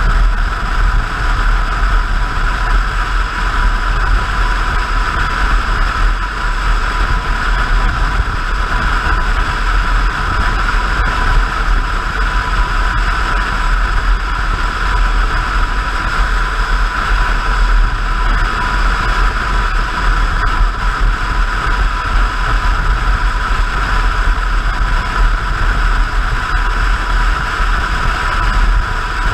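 Motorcycle cruising steadily at highway speed: a constant rush of wind buffeting the mounted camera's microphone over the drone of the engine and tyres, with no change in speed or revs.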